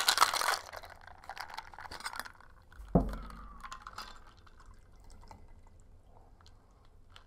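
Ice rattling in a stainless steel cocktail shaker as it is shaken, stopping about half a second in; a few light clicks and a sharp knock about three seconds in, then the shaken cocktail trickling faintly from the shaker into a martini glass.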